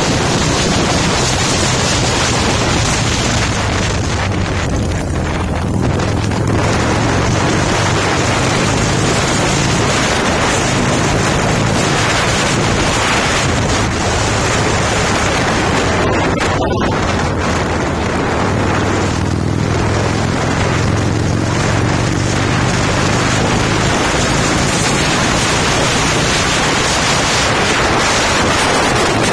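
Harley-Davidson motorcycle engine running at a steady cruising pace, heavily overlaid by wind rushing over the microphone, with a momentary break in the sound a little past halfway.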